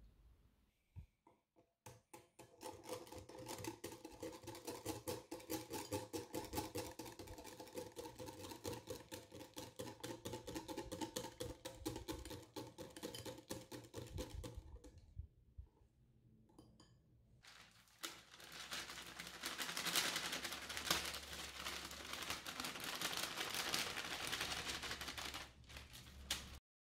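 Wire balloon whisk beating a thick chocolate batter in a glass bowl: rapid scraping and clicking of the wires against the glass, with the bowl ringing faintly under it. After a short pause, a louder, denser stretch of steady scratchy noise follows as the dry flour and cocoa mixture goes into the bowl.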